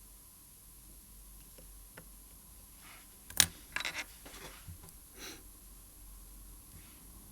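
Watchmaker's tools handling a watch movement: one sharp click, then a quick run of smaller clicks and a softer tap a couple of seconds later.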